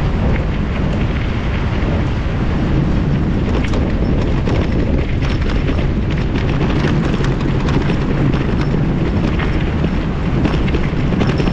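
Wind buffeting the microphone of a moving mountain bike, over a constant deep rumble from the tyres on a dirt road, with frequent small rattles and knocks from the bike.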